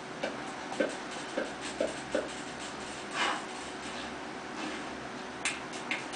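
Finger snaps: about five short sharp snaps in the first two and a half seconds, a softer rush about three seconds in, and two more sharp snaps near the end, over a steady hiss and faint hum.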